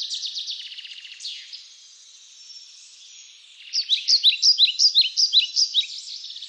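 Birds chirping and trilling in high, rapid notes. About four seconds in, a fast run of loud, sharp falling chirps, about five a second, takes over.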